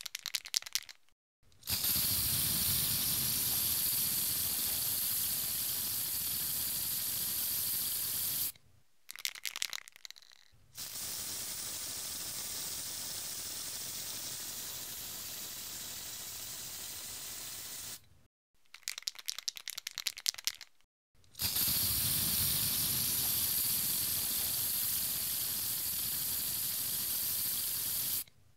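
Aerosol spray paint can shaken, its mixing ball rattling, then sprayed in a long, steady hiss of several seconds. This happens three times, with a shake before each spray. The middle spray is quieter.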